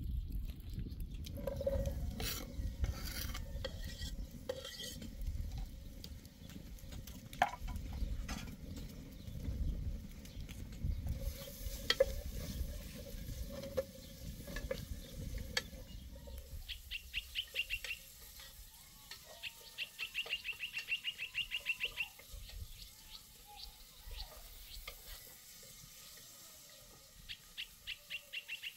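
A spoon stirring and knocking in a metal pot over a wood fire, with scattered clinks and a low rumble through the first half. From about halfway on, a bird sings repeated fast, high trills.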